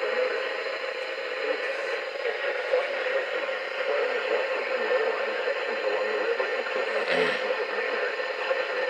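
Weather radio receiver putting out a steady band-limited static hiss between broadcasts, with one short crackle about seven seconds in.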